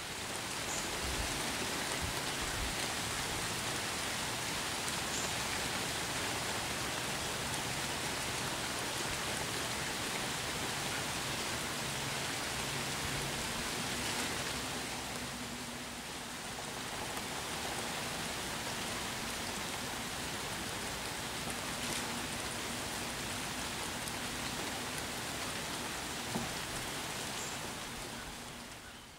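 Steady rain falling, an even hiss that eases slightly about halfway through.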